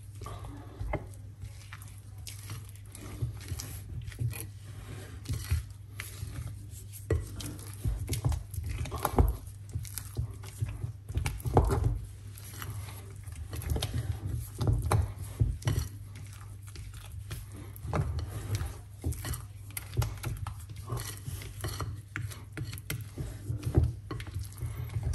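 Utensil knocking and scraping against a mixing bowl as flour is folded into cake batter, in irregular taps and scrapes, over a steady low hum.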